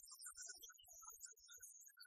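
Near silence, with only faint traces of background music.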